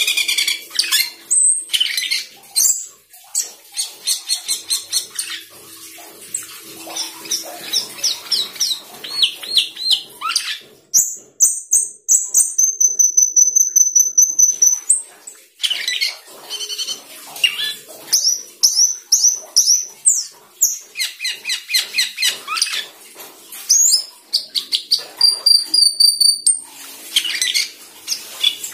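Asian glossy starling singing a long, varied song of rapid repeated chirps, trills and whistles. About midway it holds a long high whistle for some four seconds before going back to quick chirping runs.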